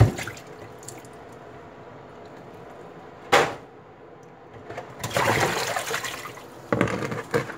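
Water poured and splashing in a stainless steel kitchen sink as a plastic basin of rinse water is emptied: a short sharp splash about three seconds in, then a loud rushing pour about five seconds in, with another splash near the end.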